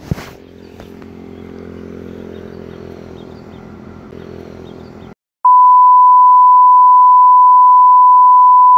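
Yamaha MT-09's three-cylinder engine running steadily at idle, which cuts off abruptly about five seconds in. Just after, a loud, steady single-pitch beep starts and holds.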